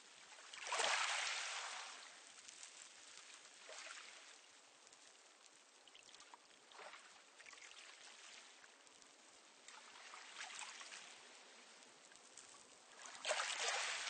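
Small, calm sea waves washing onto a pebble beach, several in a row a few seconds apart. The largest breaks about a second in and another just before the end, with softer washes between.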